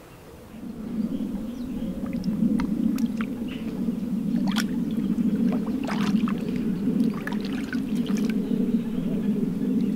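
Small splashes and drips of water as a mirror carp is lowered into the shallows and released by hand, over a steady low drone.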